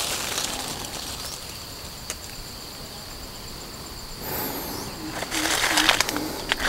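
A steady high insect drone. About four seconds in, leaves rustle and twigs snap as branches brush past and feet tread on dry fallen leaves, with four short low notes among the rustling.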